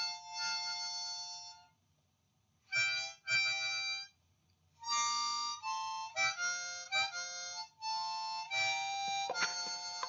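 Harmonica playing a melody in short phrases of held notes and chords, with two brief pauses in the first half.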